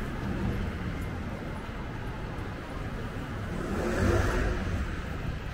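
Steady city street traffic, with one vehicle passing close by that swells to its loudest about four seconds in and then fades.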